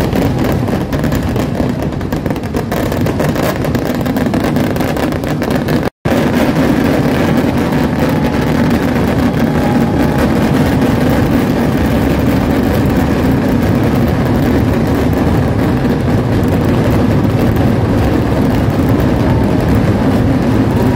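Massed fireworks going off as a dense, continuous barrage, the bursts so rapid they merge into one steady wall of crackling noise. The sound cuts out for a split second about six seconds in.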